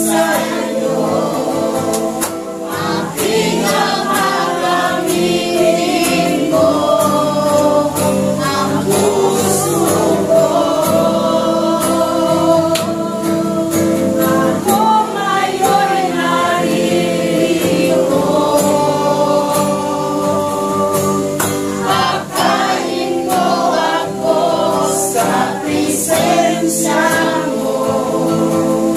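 A congregation singing the refrain of a Tagalog worship song together, with instrumental accompaniment.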